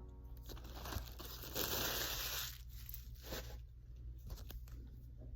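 Packaging being torn open and crinkled by hand, loudest about a second and a half in, then lighter rustles and clicks.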